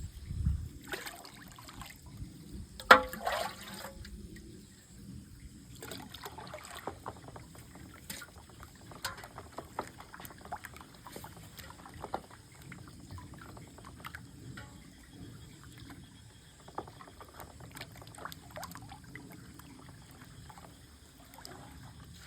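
Water splashing and trickling in small irregular strokes, with one sharp, loud splash-like hit about three seconds in.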